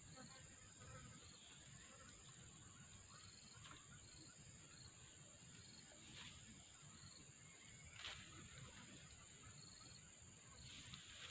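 Faint steady high-pitched drone of insects, with short chirps repeating every second or two, and two soft clicks or rustles about six and eight seconds in.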